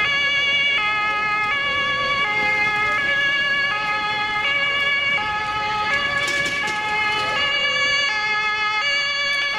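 German two-tone emergency vehicle sirens (Martinhorn), alternating between a high and a low note about every three-quarters of a second, with more than one sounding at once.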